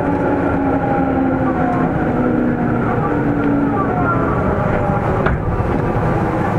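Running noise inside a JR East 205 series 3100 subseries motor car: the MT61 traction motors and gears whine in several steady, slowly shifting tones over a deep rumble of wheels on rail. A single sharp click comes about five seconds in.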